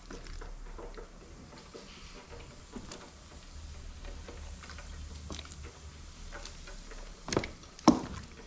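Chicken wings frying in hot oil, with scattered small crackles and pops. Two sharp knocks near the end, half a second apart.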